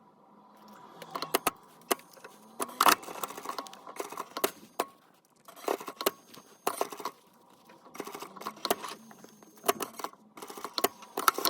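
Sewing machine stitching a square through layered denim to hold a backing patch. It runs in short spells under a steady motor hum, with irregular clicks and knocks as the stitching stops and restarts.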